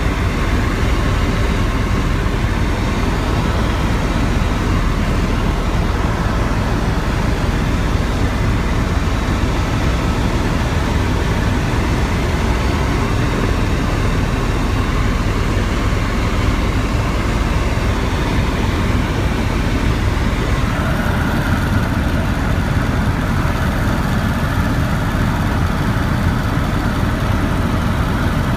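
Helicopter engine and rotor noise heard from aboard in flight: a steady, loud drone heavy in the low end, with a faint steady whine above it that shifts slightly about two-thirds of the way through.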